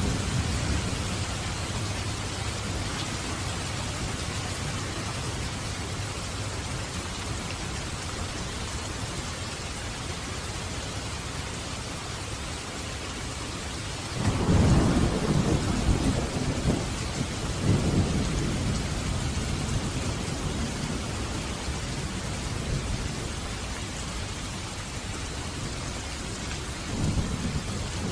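Steady rain with thunder. About halfway through, a rumble breaks suddenly and rolls on for several seconds. A shorter rumble comes near the end.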